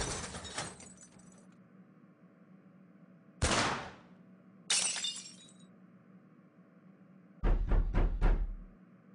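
Glass smashing and shattering in a series of crash sound effects: four separate crashes over a faint steady hum. The first and third glitter on for about a second. The last, near the end, is a quick cluster of several heavy strikes with a deep thud.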